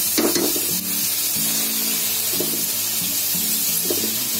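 Milk sizzling in a hot pan of butter-and-flour roux as it is stirred with a silicone spatula, with a short louder scrape or splash just after the start. Background music plays throughout.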